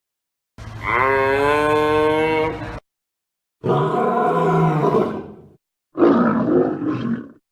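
Three separate animal calls from a sound-effects compilation, each one to two seconds long with short silences between them. The first is a long pitched call that rises at its start; the other two are rougher, roar-like calls.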